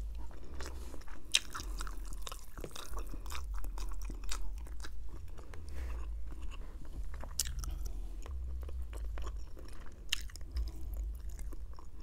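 Close-miked chewing of roasted chicken and fettuccine Alfredo: wet mouth clicks and smacks, many small ones throughout.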